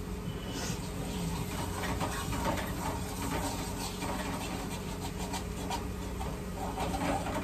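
A spatula stirring and scraping in a metal pan on a gas stove, with an irregular scratchy clatter, over a steady low electrical hum.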